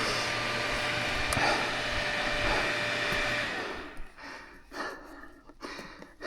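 Off-road motorcycle engine running at a steady pitch, then dying out about three and a half seconds in, a failed climb on a rock section. After it, a few light knocks and scuffs.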